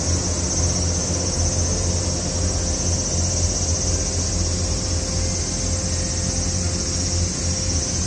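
Steady outdoor ambience: a continuous high-pitched insect drone over a low steady hum, unchanging throughout.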